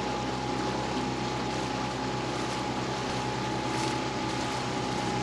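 A boat engine running steadily at low revs, with a steady thin whine above it.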